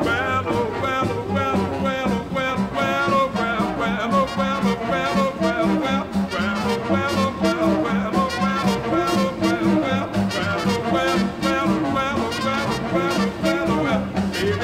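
Swing jazz music playing over a steady, even beat.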